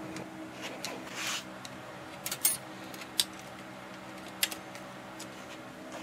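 A few sharp metallic clicks and taps from the parts of an antique Underwood typewriter being handled as a key is worked loose from its typebar; the loudest click comes about two and a half seconds in.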